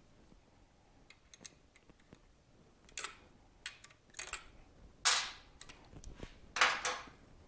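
Hand tools and metal parts being handled during a motorcycle teardown: irregular clicks and clinks with a few short scrapes, the loudest about five seconds in and near the end.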